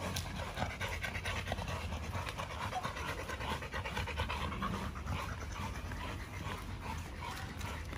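A large dog panting hard and fast, a steady run of quick breaths, as the dog is worn out from the walk.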